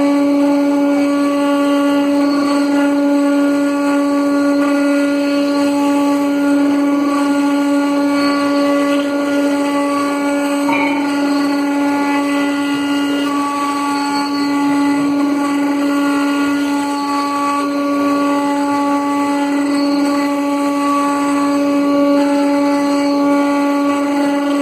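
CNC stone router spindle running with a steady whine as its bit engraves a marble slab.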